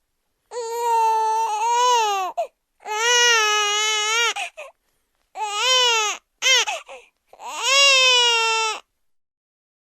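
Infant crying in a run of about four long, high-pitched wails plus one short cry, each broken off by a brief silent breath.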